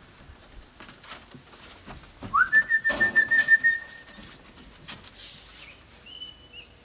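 A person whistling to call parrots: a note that rises, then holds steady with a warble for about a second and a half. Faint, short bird chirps come near the end.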